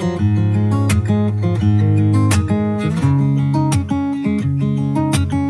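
Background music: an instrumental stretch of a pop song, led by strummed acoustic guitar over bass notes, with no singing.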